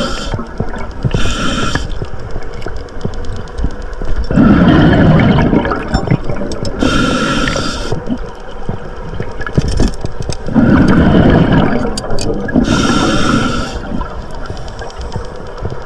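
A scuba diver breathing through a regulator underwater. Each breath is a hissing inhale with a faint whistling tone, then a gurgling rush of exhaled bubbles, about every six seconds.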